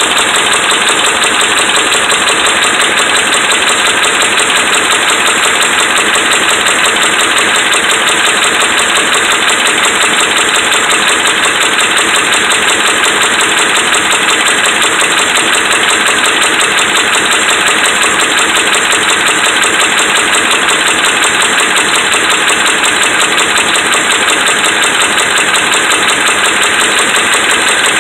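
Dodge Ram 5.7 Hemi V8 idling steadily with a constant fast knock, the sign of worn connecting-rod and crankshaft bearings.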